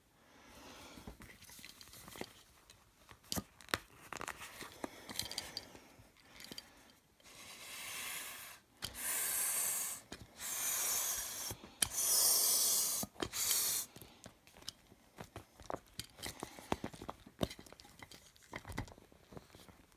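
Vinyl water wing crinkling and rustling as it is handled and fills out. In the middle come about five loud hissing bursts of air, one after another, as a pump forces air through the valve.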